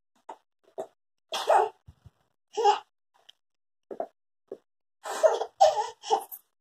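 A toddler's short, breathy vocal bursts and excited huffs, with a quick run of four together near the end.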